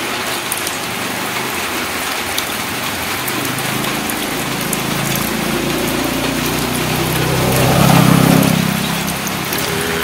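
Steady patter of drizzle on wet ground and puddles, with a motorcycle engine passing: it grows louder from about three seconds in, is loudest near eight seconds, then fades.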